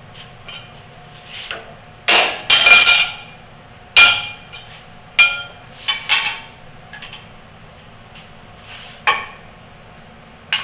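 Irregular sharp metallic clinks and knocks with a bright ring, the loudest a cluster about two seconds in and another about four seconds in. These are steel tools striking the drill press's spindle and chuck as the chuck is taken off the spindle.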